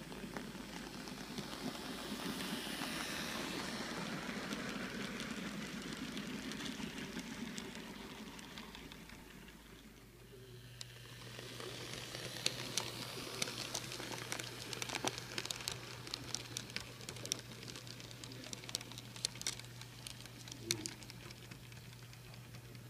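N scale model trains running on the track: a steady rolling whir that swells and fades over the first several seconds, then a train passing with a low hum and many quick, irregular clicks of small wheels on the rails.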